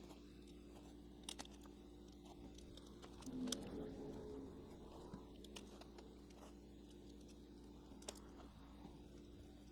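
Faint, scattered small clicks and taps of a screwdriver and screws being handled on a model locomotive's body, over a low steady hum.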